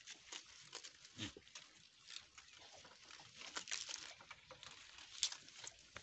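Goats browsing at leafy branches: soft, irregular rustling of leaves and crackling of dry twigs as they pull at the foliage and shift over the twig-strewn ground, with one sharper click about five seconds in.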